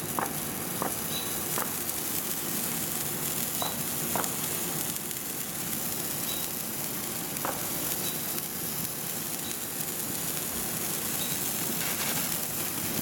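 Handheld TNT Morning Glory sparklers burning, several at once, with a steady hiss.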